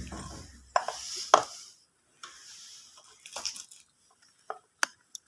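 Scattered small clicks and brief rustling from hand work on motorcycle wiring: wires and tools being handled while joining the cut charging-connector wires.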